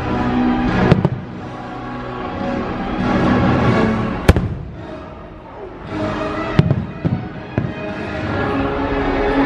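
Fireworks shells bursting with sharp bangs over show music: a bang about a second in, a single loud crack a little past four seconds, and a cluster of bangs in the last few seconds.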